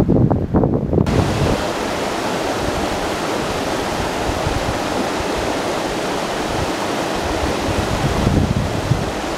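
Steady rush of water over a small three-foot creek waterfall, starting abruptly about a second in after some low wind buffeting on the microphone.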